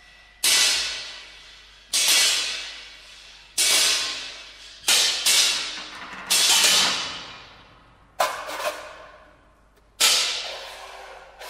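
Contemporary chamber ensemble playing a series of sudden, hissing, cymbal-like crashes, about eight in all, every one to two seconds, each fading out over a second or so.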